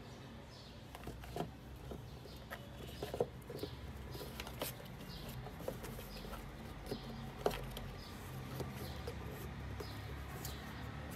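Cardboard gift box being closed and handled: light taps, knocks and scrapes as the lid goes on and the box is slid across fabric. Faint high chirps repeat in the background every second or so.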